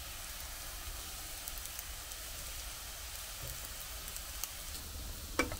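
Cauliflower-leaf fritters frying in oil in a blackened wok: a steady sizzling hiss with small crackles as their flipped second side cooks. A single sharp click near the end.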